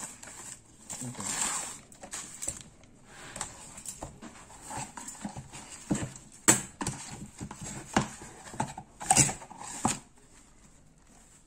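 Packaging being handled during an unboxing: a plastic mailer bag and a small cardboard box rustling and crinkling irregularly, with several sharp taps and knocks, the loudest about six and a half and nine seconds in. The sounds stop about a second and a half before the end.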